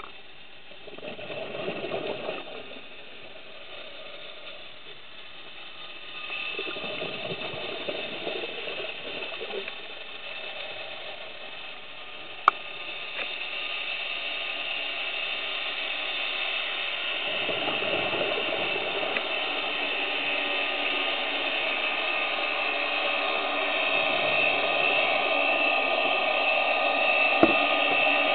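Heard underwater: a scuba diver's exhaled bubbles from the regulator, a burst every six to eight seconds, over a steady mechanical hum with a whine that grows louder. Two sharp clicks, about midway and near the end.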